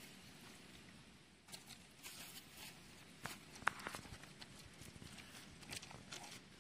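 Faint scattered rustles and taps of a plastic spice sachet being handled and its powder shaken into a steel bowl, with one sharper click a little past the middle.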